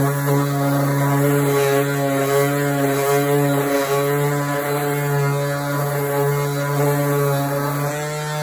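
Orbital sander running steadily against a car body panel, taking off peeling clear coat, then switched off and cutting out suddenly at the end.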